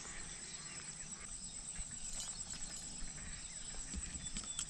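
Steady high insect chirring, with soft footsteps on grass.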